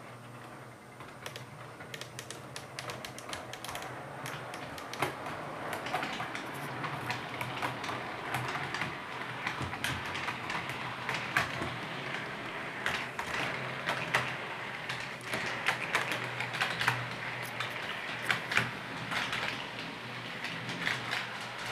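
Hornby OO-gauge model of an LNER Azuma Class 800 train running past on its track: a rapid, irregular clicking of wheels over the rail joints, getting louder after the first couple of seconds, over a low steady hum.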